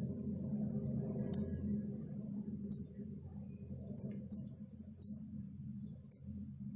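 Light, sharp clinks and ticks, six or so scattered irregularly, as chopped coriander is picked up by hand and scattered over a bowl of chana chaat. A steady low hum runs underneath.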